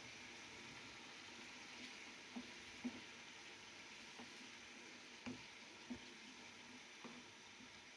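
Faint sizzling of chicken curry cooking in a metal pan, with about five short, soft knocks of a wooden spatula against the pan as it is stirred.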